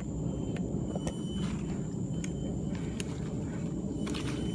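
Steady low rumble of a Dualtron Ultra electric scooter riding over a bumpy dirt trail covered in dry leaves, with a few light knocks and rattles.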